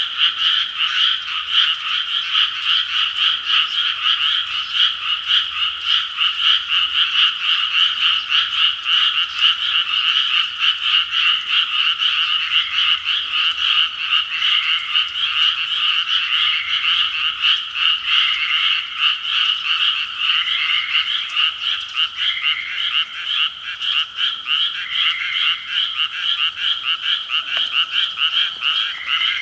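Dense chorus of frogs calling, many overlapping rapid pulsing calls. From about twelve seconds in, one separate short call repeats about every two seconds above the chorus.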